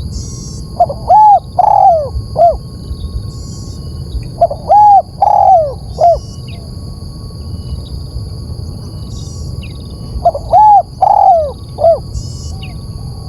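Spotted dove (tekukur) cooing: three phrases of three or four loud, arched coos, several seconds apart. It is a lure call meant to draw other doves in.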